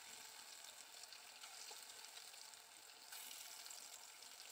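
Faint, steady sizzling of a freshly added batch of piyaju, lentil and onion fritters, deep-frying in hot oil in a pan.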